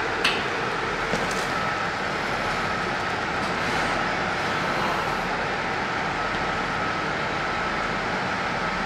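A JR 701 series electric train standing at the platform, giving off a steady hum with a faint high whine running through it. A short click comes just after the start.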